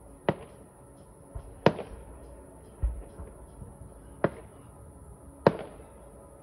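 Fireworks exploding: four sharp bangs spaced one to two and a half seconds apart, with two deeper, duller thuds between the first three.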